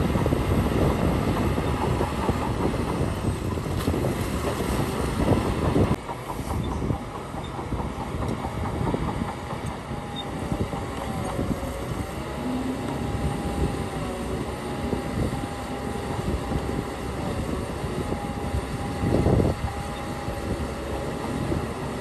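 Heavy diesel earthmoving machinery at work: a bulldozer and dump trucks rumbling under load. It is loudest for the first six seconds, then a little quieter, with a steady whine in the middle part and a brief surge near the end.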